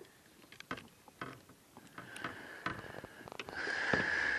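Scattered light knocks and clicks from a small bass being handled in a kayak, then a steady hiss that swells for about a second near the end.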